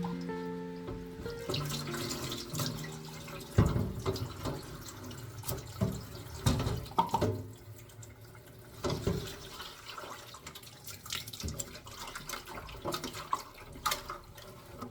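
Water running from a kitchen tap into a sink, with irregular clinks and knocks of things being handled and rinsed. A few held music notes sound in the first second and a half.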